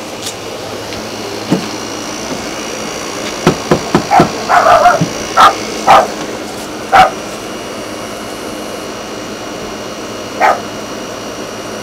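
A quick run of sharp knocks on a wooden front door, then a dog barking, about five short barks spread over the next several seconds.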